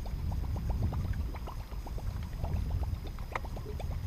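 Small waves lapping and plinking against a fishing boat's hull in a quick, irregular patter, over a steady low rumble of wind on the microphone.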